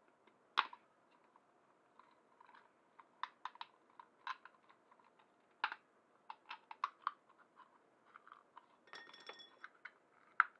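Irregular light plastic clicks and ticks as a precision screwdriver works the tiny screws of a mini RC hovercraft's plastic hull. Near the end come a brief squeak and a sharper click as the hull halves are pulled apart.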